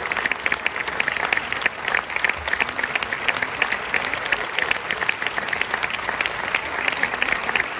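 Audience applauding steadily, a dense, even mass of handclaps.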